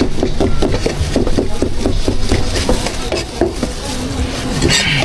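Cleaver chopping braised meat on a wooden cutting board in quick, even strokes, about five a second, over a steady low hum.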